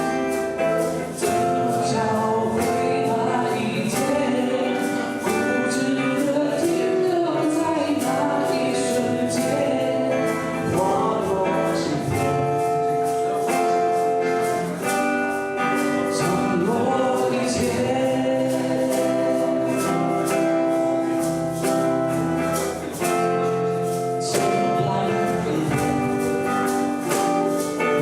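Live song performance: singing over strummed acoustic guitars, with a steady rhythm.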